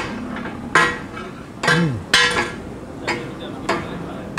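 Metal spatulas clanging against a steel tawa griddle, takatak-style chopping: about five sharp, ringing metal strikes at uneven intervals.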